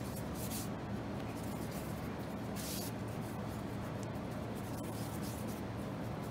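Floured hands patting and rubbing a starch-dusted mochi ball into shape, giving a few soft brushing rustles over a steady low hum.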